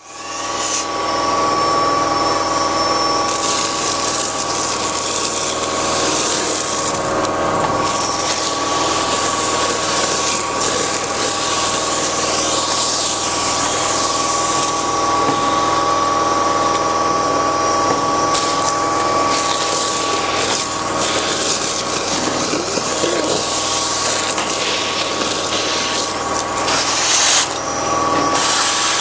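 580 Super Sucker gutter vacuum running steadily, its motor holding a constant pitch, with the rush of air through the suction tube swelling and fading as leaves are drawn up out of the gutter. A brief louder surge comes near the end.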